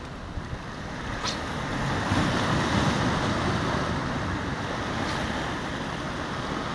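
Sea waves washing against the boulders of a rock breakwater, with one surge swelling about two seconds in and slowly subsiding, and wind on the microphone.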